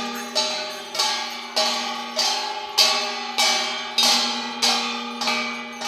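Metal bells struck in a steady, even beat, about three strokes every two seconds, each stroke ringing on at a steady pitch, as festival music played by a Maria tribal procession.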